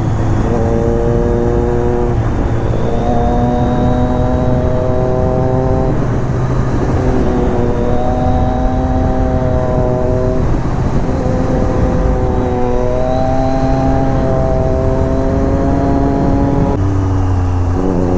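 Triumph Daytona 675's inline three-cylinder engine on the move, its note climbing slowly in each gear and dropping back at each of several upshifts.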